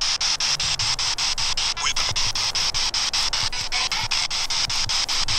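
P-SB7 spirit box sweeping through radio stations: a steady hiss of radio static chopped by rapid, regular clicks several times a second.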